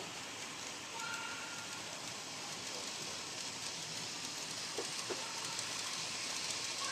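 HO scale model diesel locomotive and hopper cars rolling past on the track, a steady hiss of wheels and motor that grows slightly louder as the train comes closer.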